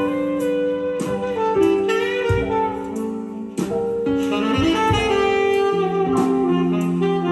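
Jazz ballad recording played through Pioneer S-955III speakers driven by a Sansui AU-9500 amplifier, in an instrumental passage without singing: a melody of long held notes over a low accompaniment with a few soft beats.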